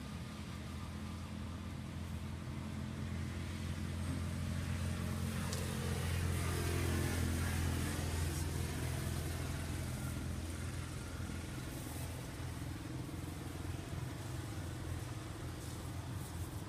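Low steady hum of a motor vehicle engine, growing louder toward the middle and then easing off.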